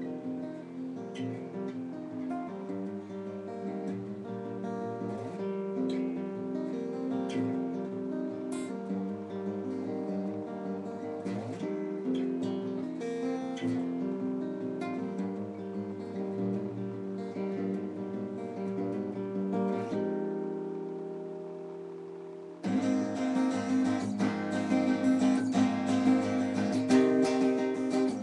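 Solo guitar playing a song: picked notes and chords with slides between them, one chord left ringing and fading, then louder, fuller strumming near the end.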